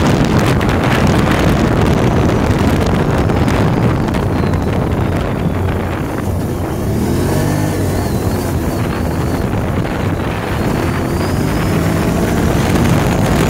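Can-Am ATV engine running while riding over a grass trail, with wind buffeting the microphone. About halfway through the rushing noise eases and the engine's note comes through more clearly.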